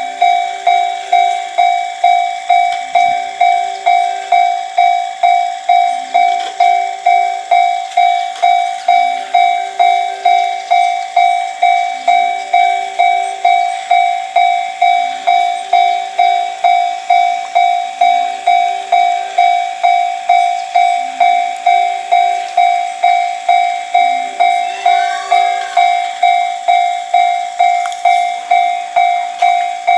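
Japanese level-crossing warning bell ringing steadily, about two strokes a second, while the crossing is closed for a train.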